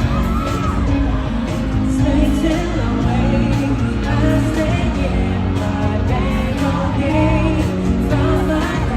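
Live pop music with a boy band singing, played loud over a concert sound system during a sound check, with a strong steady bass.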